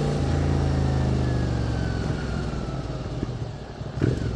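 QJ Motor SVT 650X motorcycle's V-twin with an Arrow Racetech slip-on end can, running under way; after about two seconds the revs fall away as the throttle is closed. A brief knock about four seconds in.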